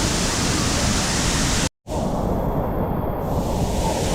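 Steady rushing roar of a large waterfall and its splashing spray. The sound cuts out for an instant a little under two seconds in, then comes back duller for a couple of seconds.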